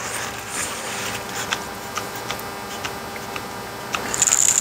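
Paper towel rubbing and dabbing alcohol-diluted flux off a circuit board, with light scattered ticks and a brief high hiss near the end.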